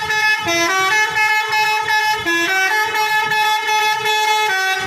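Indonesian bus 'telolet' multi-tone air horn playing a short stepped tune of a few notes. The tune repeats about every two seconds and cuts off near the end.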